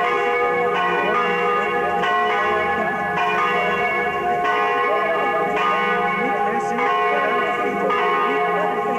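Church bells ringing, with a fresh strike about once a second, over people chatting.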